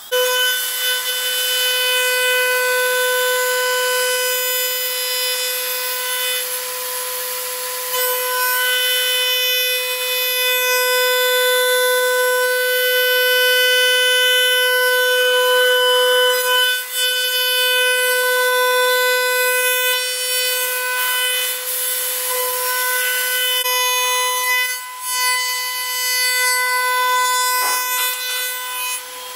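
Router spindle of a Lee Hyun multi-wood joinery machine running at a steady high whine as its cutter mills joinery into a hardwood board, with the hiss of cutting beneath. The level dips briefly a couple of times past the middle.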